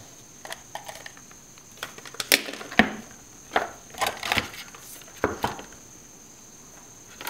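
Irregular plastic clicks and knocks as a blender's switch circuit board and wiring are worked loose and pulled out of its plastic base housing.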